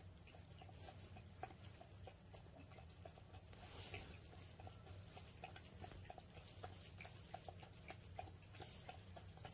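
A calico cat lapping water from a glass bowl: faint, quick soft ticks, a few a second, over a steady low hum.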